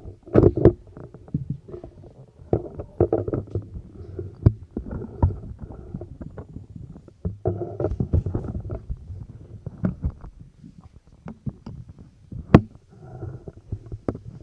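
Irregular thumps and knocks close to a microphone, with low rumbling and faint muffled voices between them, as people move about and get ready at the microphone.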